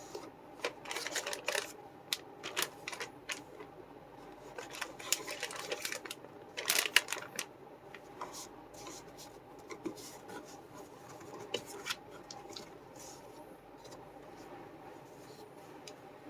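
Plastic model kit box and parts being handled: irregular clicks and short rustles, loudest about seven seconds in, then fewer and quieter.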